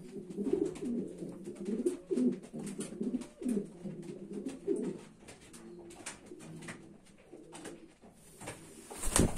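Homing pigeons cooing, throaty and repeated, busiest over the first few seconds and fainter after. A loud thump comes near the end.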